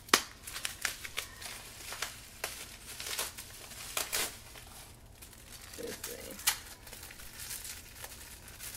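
Gift wrapping being handled and unwrapped by hand: gold wrapping paper crinkling and rustling in irregular crackles, with some tearing.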